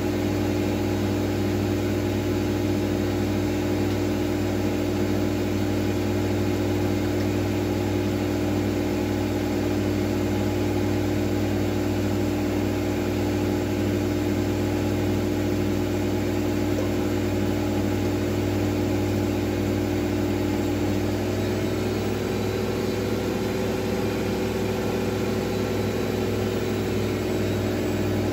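Miele W433S washing machine spinning steadily, a constant motor hum. About 22 s in a second, slightly higher tone joins in.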